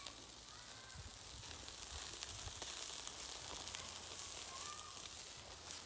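Skewered liver sizzling on a charcoal grill: a steady fat-spitting hiss with scattered small crackles.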